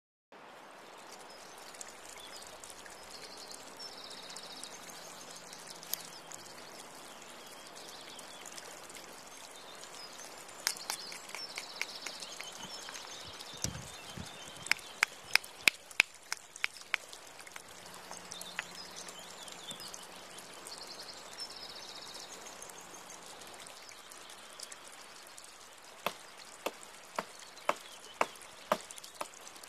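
Outdoor ambience with faint high chirps. Shortly after the middle comes a quick run of about six sharp stone-on-stone knocks: a hammerstone flaking a stone blank. Near the end comes a regular series of blows, about two a second, as the stone cleaver chops at a branch.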